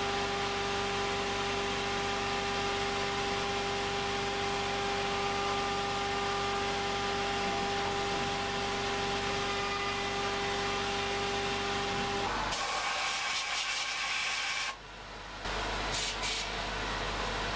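A CNC mill's 4.5 kW BT30 spindle running with a steady whine as an endmill machines a thin aluminium plate. About twelve seconds in the whine stops and a hiss takes over, briefly dropping away near the end.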